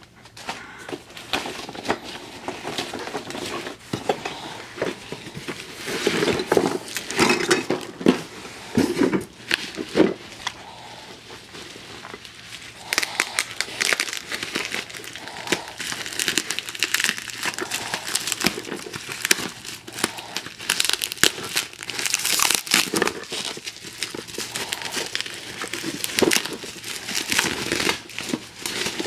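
Plastic bubble wrap crinkling and crackling as it is handled and pulled open by hand, in irregular bursts of rustling that grow louder at a few points.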